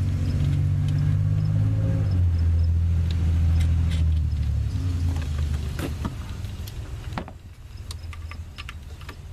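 Light metallic clicks and taps of a flat washer and nut being fitted onto a stud, over a steady low rumble that drops away about seven seconds in.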